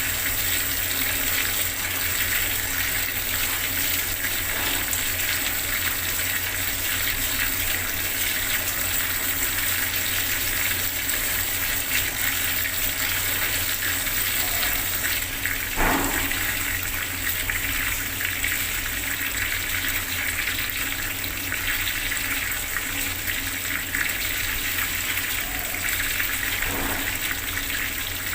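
Bathroom water tap running steadily at full flow, with one brief louder splash about halfway through.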